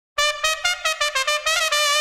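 Solo trumpet playing a bullring-style fanfare: a quick run of short, separate notes, then a long held note near the end.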